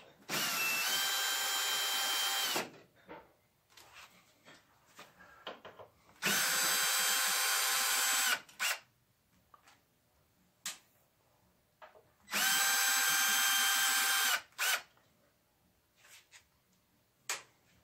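Cordless drill/driver backing out the screws that hold a rack-mounted control shelf: three runs of steady motor whine, each about two seconds long. Small clicks and taps fall between the runs.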